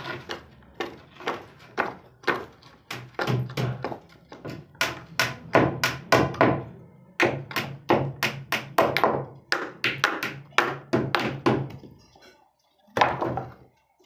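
Repeated knocks, about two to three strikes a second, over a low steady hum. They stop briefly near the end, then one more knock follows.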